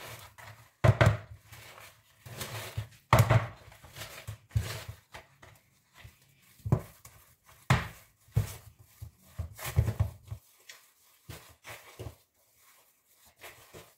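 A utensil knocking and scraping against a mixing bowl as eggless cake batter is stirred to work out the lumps. The strokes come irregularly, and they fade to a few faint taps after about ten seconds.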